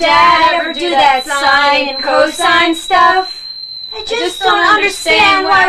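A high voice singing in wavering, drawn-out notes, in two phrases with a short break about three seconds in, over a steady high-pitched whine.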